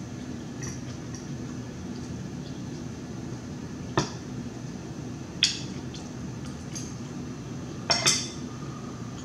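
A metal fork clinking against a plate a few times as food is picked up: single clinks about four and five and a half seconds in, and two close together near the end, over a steady low hum.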